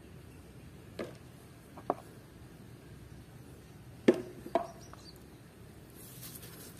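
Hollow plastic clacks of muddy toy animal figures being picked up and knocked together as they are gathered: four short knocks, two of them close together about four seconds in.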